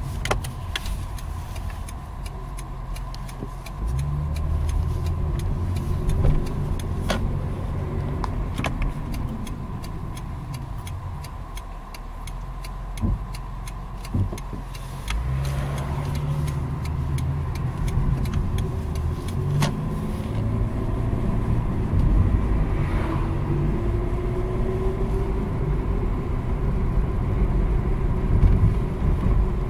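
Toyota Camry V6 car driving: steady engine and road rumble whose level steps up about four seconds in and again around fifteen seconds, with a slowly rising whine in the last third and a few light clicks.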